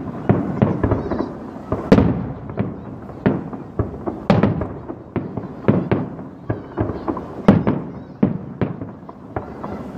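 Aerial fireworks shells bursting in quick, irregular succession, about two or three bangs a second, each with an echoing tail, the loudest about two seconds in and again near the middle.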